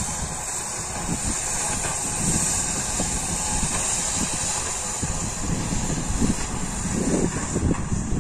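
Distant New Holland TD100D diesel tractor running steadily as it pulls a fertilizer spreader, with wind buffeting the microphone in irregular gusts that grow stronger near the end.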